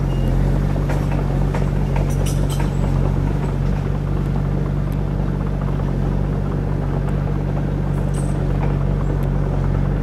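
Small crawler bulldozer's diesel engine running steadily under load as the blade pushes and grades dirt, with a few short clinks over it.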